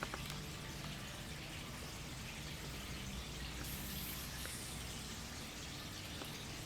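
Water running steadily down an indoor water-wall fountain, a constant even splashing.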